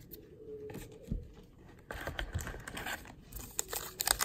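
Handling of a trading-card pack: a few soft taps, then from about two seconds in the crinkling of the pack's wrapper as it is pulled from the hobby box, growing louder near the end.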